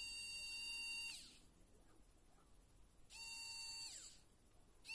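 Small motor of a precision electric screwdriver whining in short bursts on a test run after repair. Each burst lasts about a second and falls in pitch as the motor winds down. A second burst comes about three seconds in and a third starts near the end.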